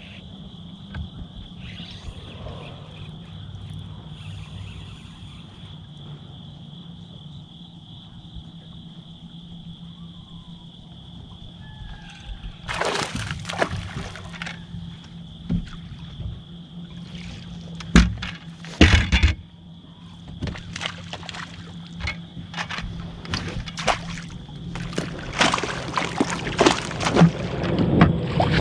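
Water splashing at the lake surface as fish break it: a few short splashes about halfway through, then a busy run of splashes near the end as a hooked fish thrashes on the line. A steady low hum and a steady high whine sit under it.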